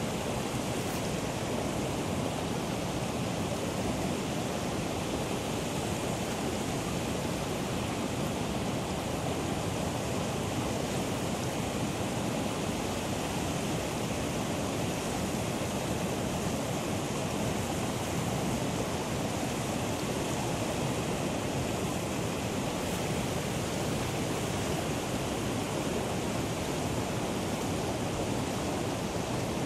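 Fontan Geyser erupting: a steady, unbroken rush of water and steam jetting from the vent.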